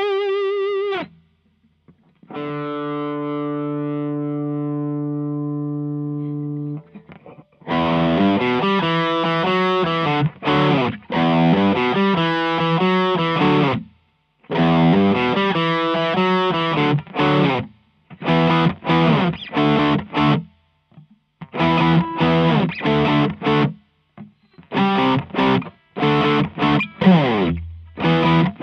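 Overdriven electric guitar, a Gibson Les Paul with humbuckers through a Fender Blues Deluxe amp and a Tube Screamer-style overdrive pedal. A held note with vibrato ends about a second in, then a chord rings for about four seconds, followed by choppy rhythm chord riffing with short stops.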